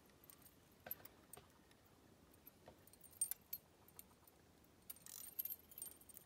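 Faint, irregular metallic clicks and ticks from a spinning fishing reel being cranked to retrieve line, with a cluster of them a little after five seconds.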